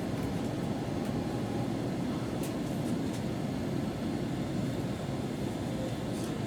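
Steady running rumble of an N700S Shinkansen train, with a few faint ticks.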